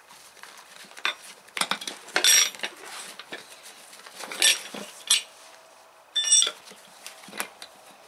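A metal tire lever clinking and scraping against a steel wheelbarrow rim as the old tire's bead is pried off. It comes as a string of separate sharp clinks, the loudest about two, four and a half and six seconds in, some with a short metallic ring.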